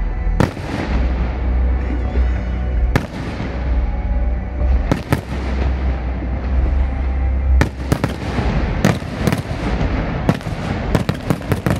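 Aerial firework shells bursting in a display: sharp bangs every second or two, then a quick run of several bangs near the end.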